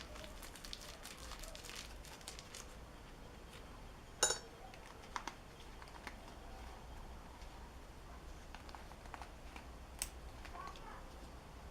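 Faint handling noises from cutting and unwrapping a stick of cold-weld epoxy putty: light crinkling at first, then a few sharp clicks, the loudest about four seconds in and another near ten seconds.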